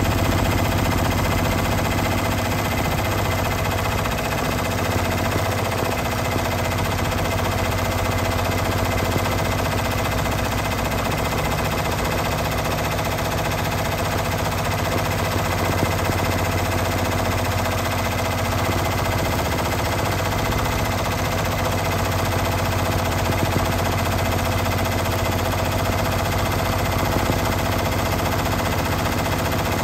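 Brother multi-needle embroidery machine stitching at speed: a rapid, steady mechanical rattle of the needle bar punching through the fabric, over a steady motor hum.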